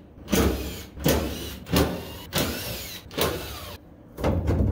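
Cordless drill-driver whirring in about six short bursts, each rising and falling in pitch, as it backs out the screws holding a sheet-metal motor cover panel.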